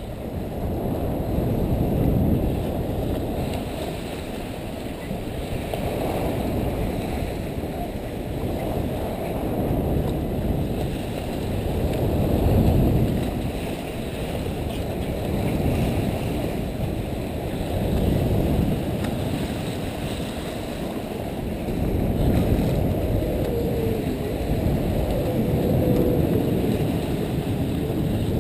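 Low, rushing wind and water noise at a sailing yacht's bow, picked up by a camera on the end of the bowsprit, swelling and easing every few seconds as the bow moves through the waves.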